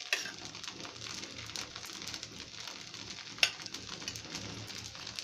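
Dosa sizzling and crackling in oil on a hot dosa pan (tawa) as its first side cooks, with one sharp pop about three and a half seconds in.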